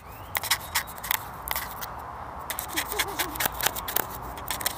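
A lemur's paws and fur scratching and rubbing directly against the camera's microphone, an irregular run of sharp, scratchy clicks.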